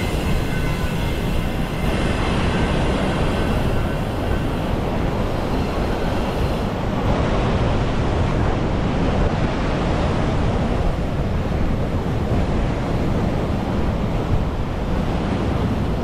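Steady rush of breaking surf mixed with wind buffeting the microphone.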